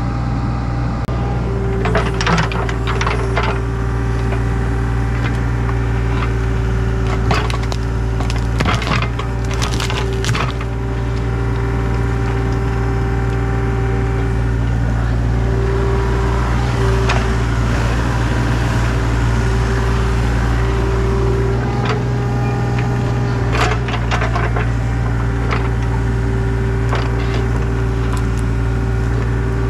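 Excavator engine running steadily under load while its bucket clears brush and organic debris from a culvert outlet, with sticks and roots cracking and snapping in several short clusters.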